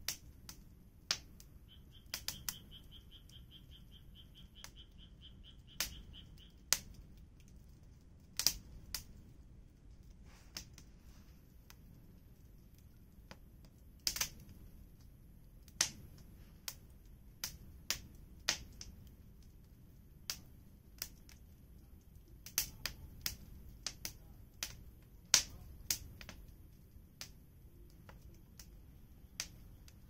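Wood fire crackling: irregular sharp pops and snaps from burning firewood over a soft, low rumble of flame. A faint, rapid chirping comes in for about two seconds near the start.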